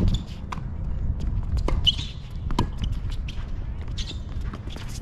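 Tennis rally: a ball struck by racket strings and bouncing on a hard court, a sharp hit right at the start followed by several more knocks a second or so apart.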